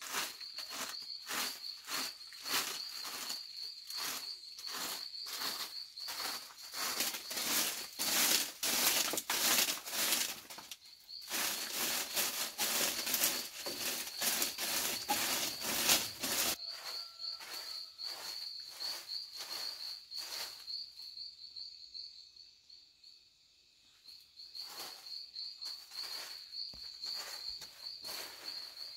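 A broom sweeping a dirt floor strewn with dry leaves and twigs, in quick even strokes about two a second, stopping about halfway through. Under it an insect keeps up a steady high trill.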